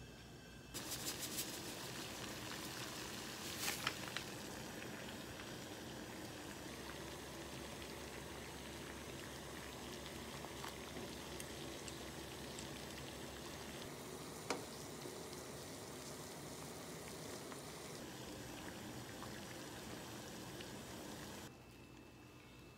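Water boiling steadily in a saucepan with asparagus spears blanching in it, with a few sharp clicks of wooden chopsticks against the pot, the loudest about four seconds in and near the middle. The bubbling cuts off suddenly near the end.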